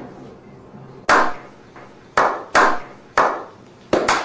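Slow hand clapping by a small group: single sharp claps with a short echo, about a second apart at first and coming faster near the end, the start of a slow clap.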